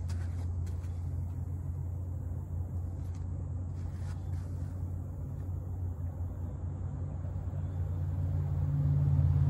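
Steady low engine drone, growing louder near the end.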